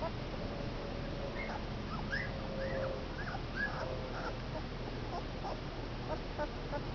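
Two-week-old Komondor puppies whimpering: a run of about six short, high whines, each rising and falling, over a couple of seconds, then fainter squeaks.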